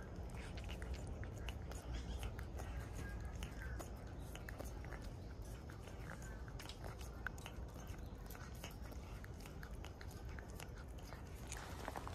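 Calico cat licking a liquid cat treat from a squeeze tube: a string of small, quick wet tongue clicks and smacks over a low steady rumble.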